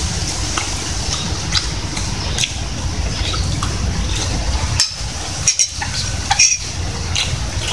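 A metal spoon scraping and clinking against a ceramic plate while eating, with a few sharp clicks about five to six seconds in, over a steady low background rumble.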